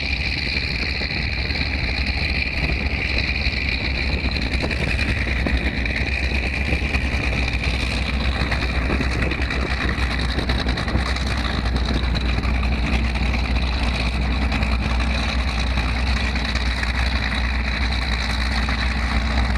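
Miss Geico offshore racing catamaran's engines running steadily at low speed, a deep rumble under a steady high whine.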